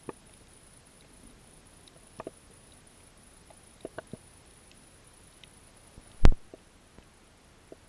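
Underwater sound picked up by a submerged camera: scattered sharp clicks and pops, some in quick pairs, with one much louder low thump about six seconds in, over a faint steady high whine.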